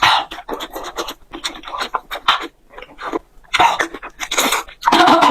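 Close-miked eating of spicy hotpot: an irregular run of short slurps and sharp breaths, loudest between about three and a half and four and a half seconds in and again near the end.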